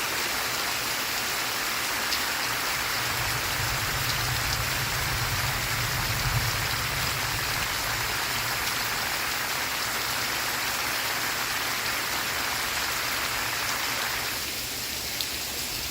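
Steady rain falling, an even hiss with a low rumble swelling a few seconds in and fading by the middle; the rain thins slightly near the end.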